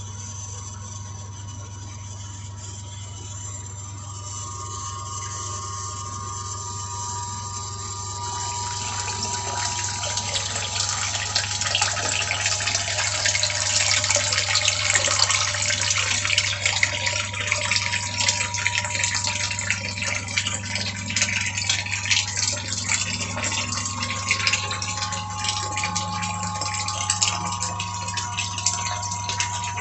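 Old electric sump pump running with a steady motor hum while it pumps water; the rush and splash of water builds and grows louder from about a third of the way in.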